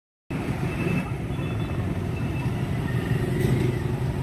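Street traffic: motorcycle and motor-tricycle engines running and passing, a steady low rumble.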